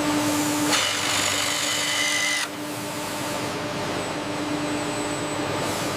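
A power drill running steadily as it countersinks a metal button frame. A brighter, louder cutting noise joins from about a second in until about two and a half seconds in.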